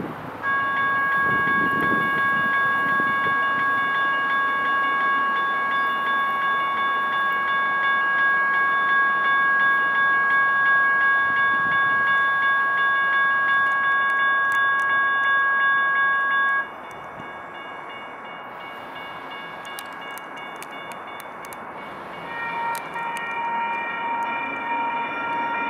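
A grade-crossing warning bell ringing steadily at one pitch, then cutting off abruptly about two-thirds of the way through. Near the end a second crossing signal at a different pitch starts up.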